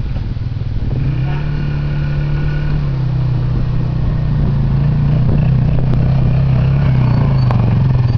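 ATV engine running steadily at low speed, getting louder as the quad drives up close.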